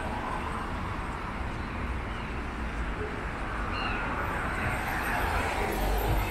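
Street traffic noise from a wide road, with a vehicle's tyres hissing on the wet surface and swelling as it passes, loudest near the end. A few short high chirps come a little after the middle.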